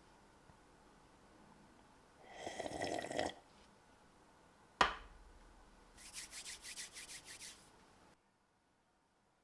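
Handling sounds while unpacking and building a keyboard: a brief rustle about two seconds in, a single sharp click near the middle, then a quick run of about ten scraping strokes.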